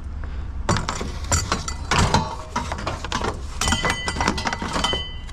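Rapid clinks and knocks of glass and metal being handled, with glass light bulbs rattling against each other. A steady low hum runs underneath.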